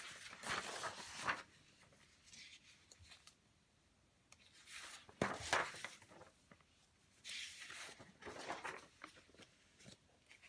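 Large sheets of original comic-book art paper being turned over and slid across a stack, about four rustling bursts with short pauses between them.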